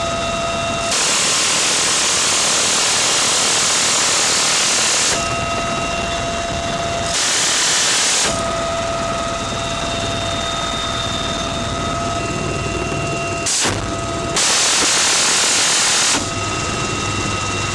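GAU-17/A (M134) minigun firing from a UH-1Y Venom's door: three bursts so fast that the shots run together into one continuous noise, a long one of about four seconds near the start, a short one of about a second about seven seconds in, and one of about two seconds near the end. Between bursts the helicopter's steady whine is heard.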